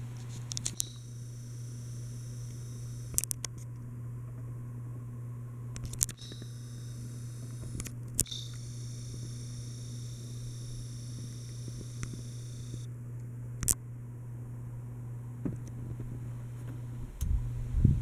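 Hampton Bay Littleton ceiling fan running with a steady low hum. Over it come several sharp clicks and a thin high whine from the camera zooming in, and a rumble of camera handling near the end.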